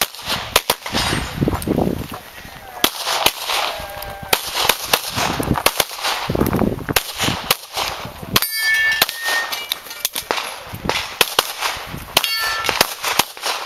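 Rapid pistol shots fired in quick succession through a practical-shooting stage, with steel targets clanging and ringing when hit, most clearly twice in the second half.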